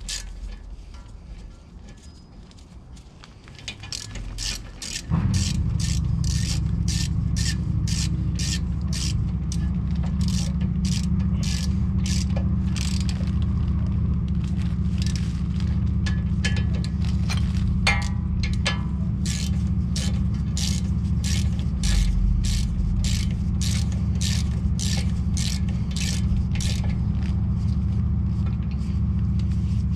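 Ratchet wrench clicking, about two clicks a second, while tightening the 14 mm brake caliper bracket bolts. A steady low rumble comes in suddenly about five seconds in and carries on under the clicks.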